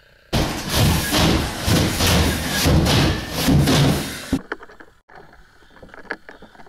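Loud rough crashing and scraping of drywall being broken open and pulled down with a fire axe during overhaul, starting suddenly and cutting off after about four seconds. Then quieter scattered sharp knocks and scrapes of the axe working in the wall.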